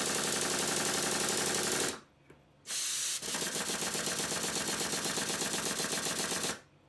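Stuart triple expansion model steam engine running fast on compressed air: a rapid, even stream of exhaust beats. It stops for about half a second about two seconds in, starts again, and stops near the end.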